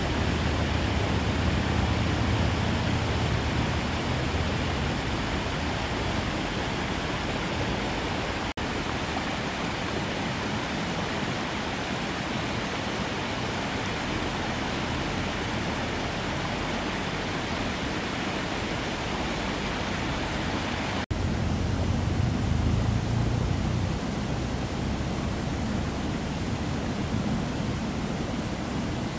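A steady, even rushing noise, like an ambient nature bed, that drops out for an instant about eight and a half seconds in and again about twenty-one seconds in, where it comes back slightly fuller in the low end.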